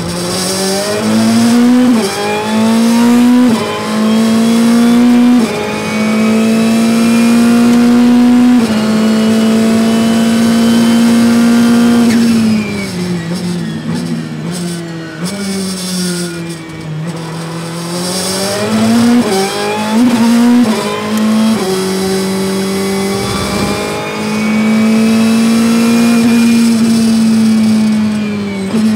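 Ferrari 488 GT Modificata's twin-turbo V8 at full throttle, pulling up through the gears from first with several quick upshifts, each a sudden drop in pitch before it climbs again. About twelve seconds in the revs fall under hard braking with a run of downshifts. It then accelerates again, with more upshifts at about nineteen to twenty-one seconds, and holds high revs near the end.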